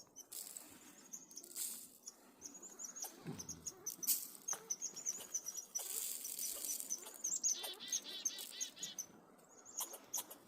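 Small birds chirping in many short, high notes, with a rapid trill of repeated notes about three quarters of the way through.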